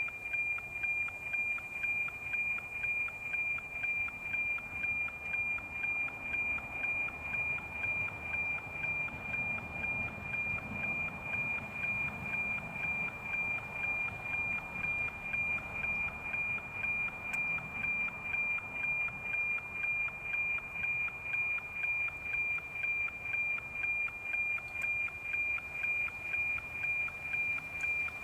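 NOAA 19 weather satellite's analogue APT image signal, received on 137.1 MHz with an RTL-SDR and played as audio: a steady high tone over radio hiss, pulsing about twice a second. Each pulse is one scanned image line.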